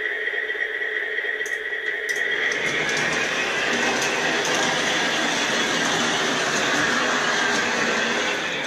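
MTH Rail King O-gauge E-8 model diesel chassis running along the track, its motors and gears giving a steady whine. About two and a half seconds in, the sound grows louder and fuller.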